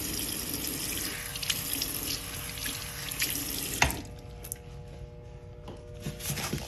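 Water running from a bathroom sink faucet into the basin, then shut off with a click of the lever handle about four seconds in.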